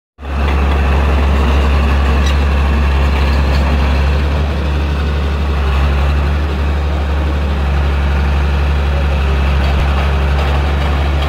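Vehicle engine running steadily, a constant low drone.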